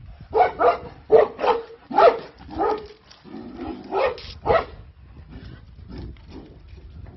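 Anatolian shepherd dog barking: about eight loud barks in quick succession over the first five seconds, then fainter barks.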